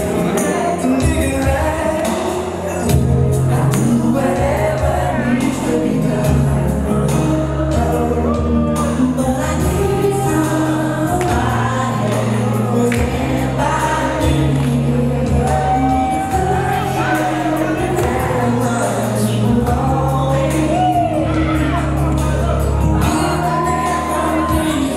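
Music: an R&B song with a group of male voices singing in harmony over a steady bass line.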